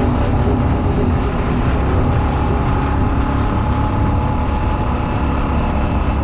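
Motorcycle riding at a steady speed: wind rushing over the helmet-mounted microphone, with the engine running underneath.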